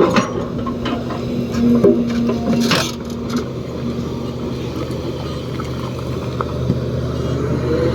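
Heavy diesel engine of an excavator running steadily, with a few sharp metallic knocks in the first three seconds.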